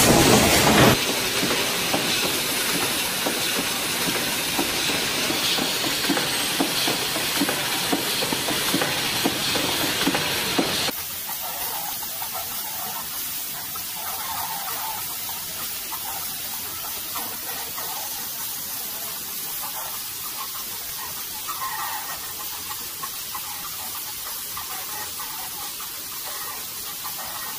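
Automated production machinery running: a steady mechanical hiss with fine rapid clatter, which drops suddenly to a quieter, thinner hiss about eleven seconds in.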